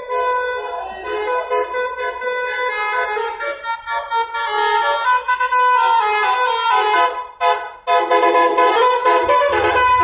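Bus 'telolet' horn: a multi-tone air horn playing a tune of steady notes that change every fraction of a second, broken off briefly about seven and a half seconds in.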